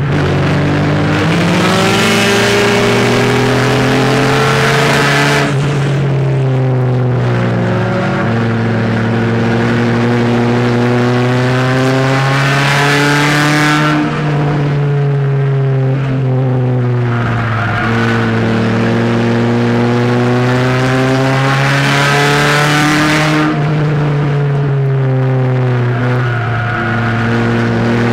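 Race car engine heard from inside the cockpit at racing speed. Its pitch climbs steadily on each straight and drops off into each turn, several times over, as the car laps a short oval.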